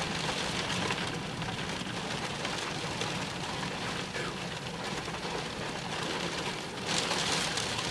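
Steady rain pattering on a vehicle, heard from inside, over a steady low hum. The rain grows louder about seven seconds in.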